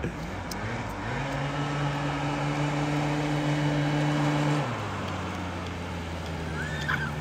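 Scooter engine idling, then revved about a second in and held at a steady higher speed for about three and a half seconds before dropping back toward idle.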